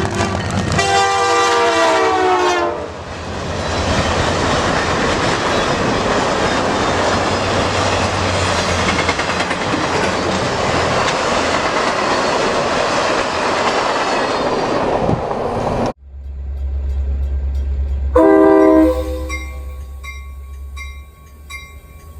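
Diesel locomotive horn sounds a chord for about two seconds, then a passing train rumbles and rattles steadily for over ten seconds. After a sudden break comes a low engine rumble and a second short, loud horn blast.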